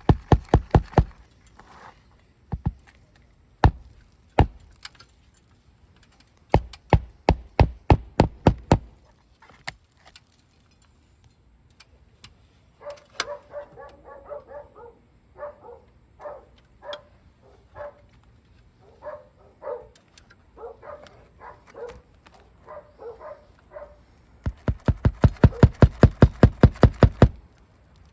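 Hammer driving roofing nails through a shingle in quick runs of blows, the longest and fastest near the end. In the middle a dog barks repeatedly.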